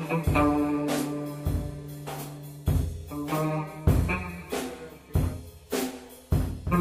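Drum kit and guitar playing an instrumental jam: loose kick, snare and rimshot hits under sustained guitar notes.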